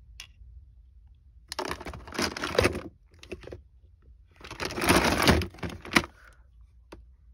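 Hands rummaging through a collection of plastic fidget toys: two bursts of rustling and clattering, then a sharp click about six seconds in.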